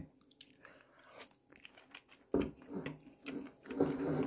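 A person chewing a mouthful of crab leg meat. There are faint clicks at first, then louder chewing from about two seconds in.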